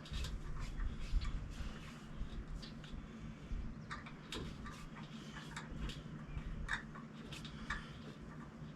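Hand tap cutting threads into a steel truck frame: irregular light metallic clicks and short scrapes over a steady low hum.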